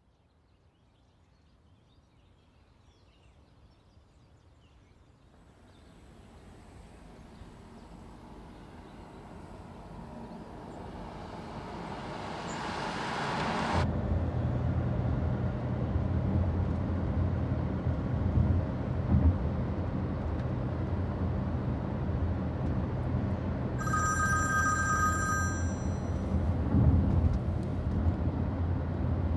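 A rush of noise swells steadily and cuts off suddenly, giving way to the steady low drone of a car's cabin on the move. Near the end a mobile phone rings for about a second and a half with an incoming call.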